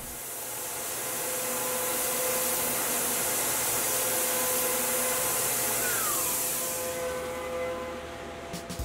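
Tormach 1100M CNC mill spindle running at steady high speed while a 20-degree engraver cuts lettering into aluminium, giving a constant whine, with the hiss of the air or coolant nozzle blowing on the cut. The hiss fades out about seven seconds in, a brief falling whine comes around six seconds in, and a few clicks come near the end.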